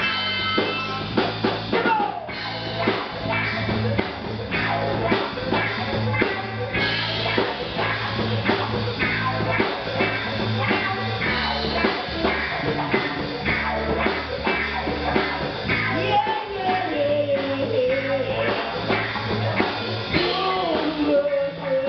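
A live blues-funk band playing, with a steady drum-kit beat, electric guitar and a low bass line. A wavering lead melody comes in over the band about 16 seconds in.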